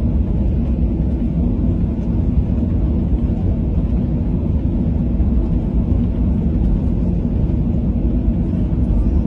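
Steady low rumble inside an airliner cabin as the jet rolls along the ground after landing.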